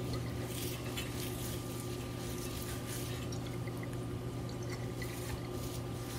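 Worcestershire sauce dribbled from the bottle onto a raw beef plate rib slab and spread with a gloved hand: faint wet drips and squishes over a steady low hum.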